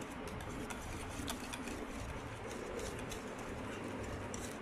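Wire balloon whisk beating banana muffin batter in a plastic bowl: a fast, irregular run of light clicks and taps as the tines strike the bowl.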